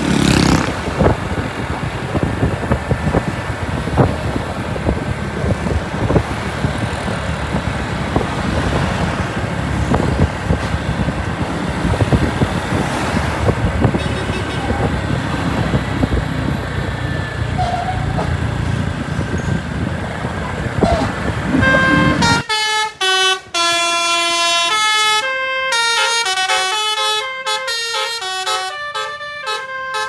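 Road traffic and a heavy bus running past for about twenty seconds. Then a manually played telolet 'basuri' bus horn plays a fast melody of stepped notes, sometimes several at once.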